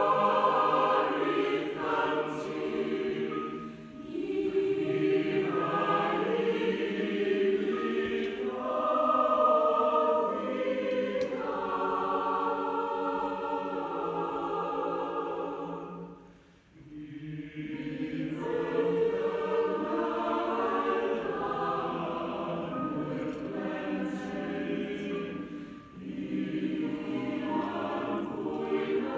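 A large choir singing in phrases, with short breaks between them and a longer pause a little past halfway before the singing resumes.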